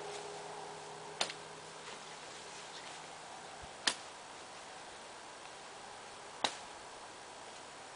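Three sharp single clicks, evenly spaced about two and a half seconds apart, over a steady low hiss.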